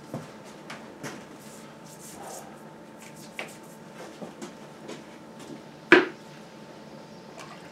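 Light knocks and scrubbing of a hand brush working on rubber quad-bike tyres and in a plastic bucket, with one sharper knock about six seconds in.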